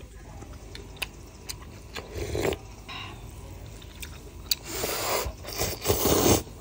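Eating instant noodles from a metal bowl: utensils click and scrape against the bowl a few times, and several short, loud bursts of noodle slurping come about two seconds in and again near the end.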